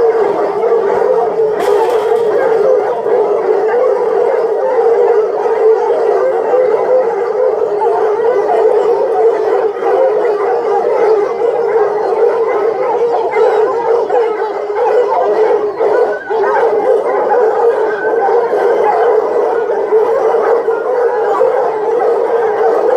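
A large pack of boar-hunting hounds baying together in one continuous, dense chorus. They are excited and giving tongue while held back from their daily feed.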